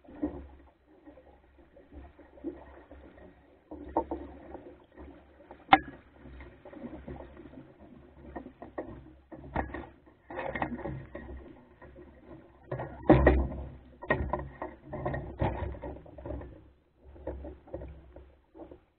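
Water slapping and gurgling against the hull of a small wooden sailing skiff under way in a chop, with irregular knocks and clunks from the boat and its gear, the heaviest about two-thirds of the way through.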